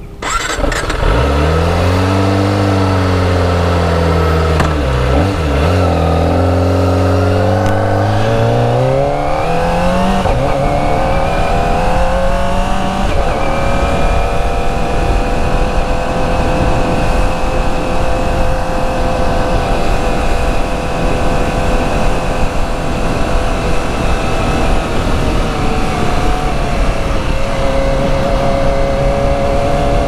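Kawasaki ZX-25R's 250 cc inline-four engine on its stock exhaust, pulling away with revs climbing, dipping briefly about five seconds in, then climbing again. From about thirteen seconds in it holds a steady high-pitched cruise under a rush of wind noise.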